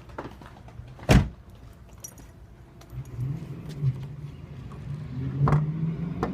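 A loud sharp click about a second in, then from about three seconds a low, uneven hum that wavers up and down in pitch, with further clicks near the end. It comes from a 2005 Dodge Neon SXT with a no-start fault, which the owner suspects is the starter or the throttle body.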